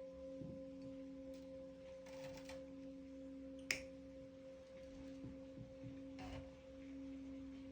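Meditation background music: a steady drone of two held tones, one an octave above the other. A single sharp click about three and a half seconds in.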